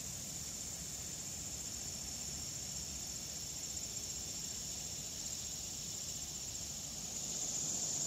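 A distant chorus of cicadas: a steady, high-pitched buzz that grows a little louder near the end.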